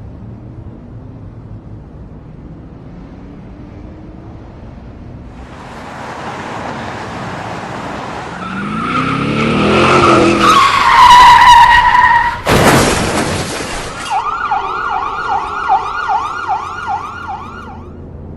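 Car crash sound effect: an engine revving up with tyres screeching, building to a loud screech, then a single heavy crash impact about twelve and a half seconds in. After it, a wailing alarm tone rises and falls about twice a second for roughly four seconds before fading to a low rumble.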